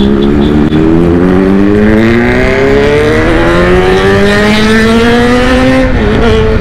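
Kawasaki Z900 inline-four engine pulling hard at full throttle, its pitch rising steadily through one long gear. Near the end the pitch dips briefly and settles a little lower.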